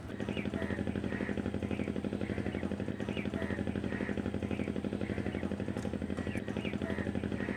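A small engine running steadily with a fast, even throb. It starts abruptly and holds a constant pitch.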